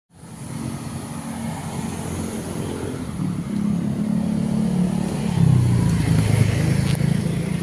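Road traffic: motor vehicle engines running steadily along the street, with the engine rumble growing louder about five and a half seconds in.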